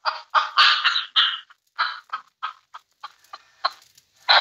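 Gasping, breathless laughter in a run of short bursts. The first few are louder and longer, the later ones quicker and fainter, and a loud burst of laughter breaks out near the end.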